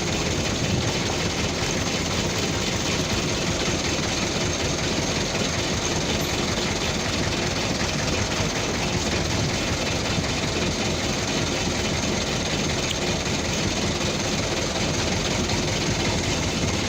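Truck's diesel engine running steadily.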